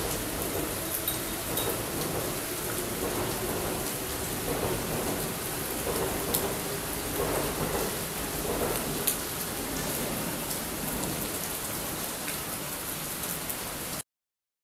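Steady rain falling, with single drops ticking on surfaces close by; the sound cuts off suddenly near the end.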